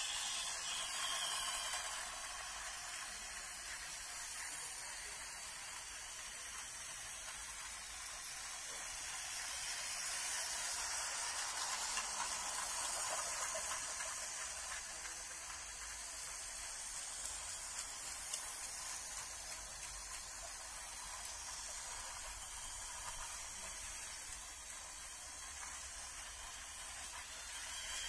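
Toy model trains running on a plastic track: a steady whirring, hissing rattle that swells as a train passes close, over the first couple of seconds and again around ten to fourteen seconds in.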